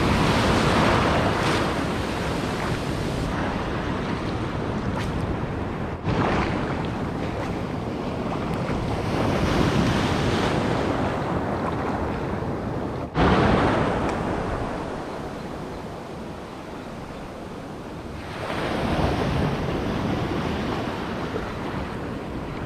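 Strong sea waves surging and washing up the shore, the noise swelling and ebbing several times, with one surge coming in suddenly about thirteen seconds in.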